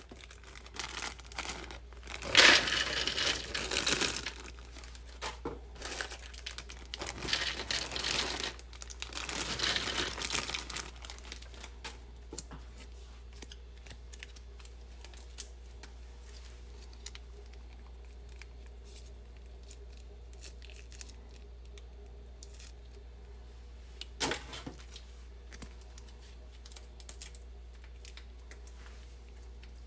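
Plastic food packets crinkling and tearing as a bag of chopped cabbage is opened and emptied into a plastic cup, loudest in the first ten seconds. Softer rustling follows, with one short tear about 24 seconds in, as a batter packet is opened.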